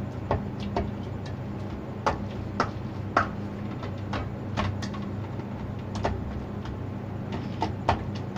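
Dough being kneaded by hand in a steel bowl: irregular knocks and taps of knuckles and dough against the metal, about two a second, over a steady low hum.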